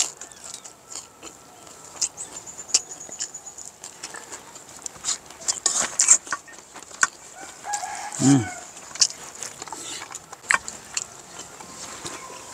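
Eating sounds: chewing, lip smacks and scattered small clicks of fingers and spoons against steel bowls, with chickens clucking in the background.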